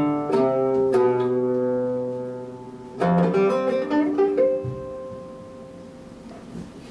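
Solo oud playing the closing phrase of a piece. A few long notes are left to ring, a quick run of plucked notes comes about three seconds in, and a last note around four and a half seconds in rings out and fades away.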